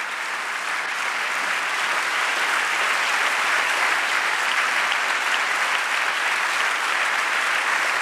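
Congregation clapping and applauding, building up over the first couple of seconds and then holding steady.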